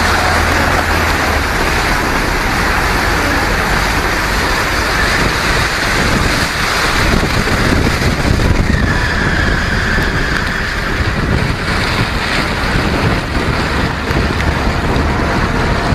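A car wading through deep floodwater on a street: a loud, steady rush and splash of water thrown up along its side.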